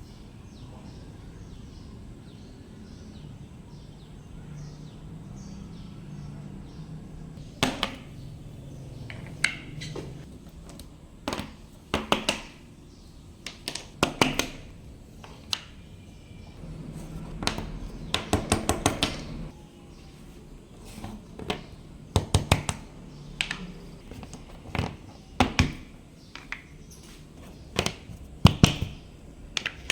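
Slime and craft materials being handled on a tabletop: scattered sharp taps and short quick runs of clicks, over a low steady hum.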